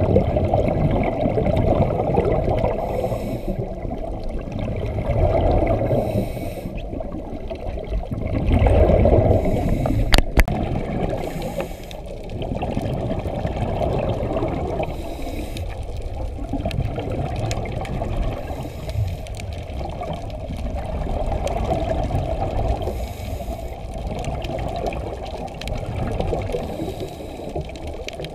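Scuba regulator breathing recorded underwater: a short hiss with each inhale every few seconds, and a low rush of exhaled bubbles that swells and fades in between. A single sharp click comes about ten seconds in.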